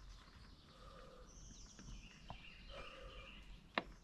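Faint bird chirps in the background, with a small click about two seconds in and a sharper click near the end.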